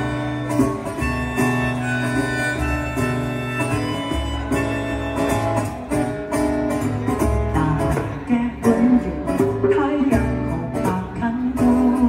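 Live acoustic instrumental passage: a harmonica in a neck rack plays a melody over a strummed acoustic guitar and djembe hand drumming.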